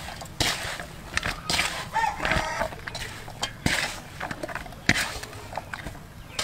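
A rooster crowing once, from about one and a half to two and a half seconds in. Under it are several sharp knocks and a rustle from hands working enoki mushrooms through flour in a metal basin.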